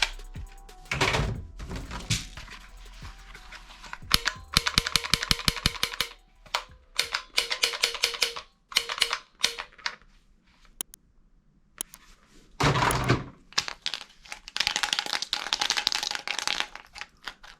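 Toy guns firing in bursts of rapid clicking, several bursts a second or two long with short pauses between them.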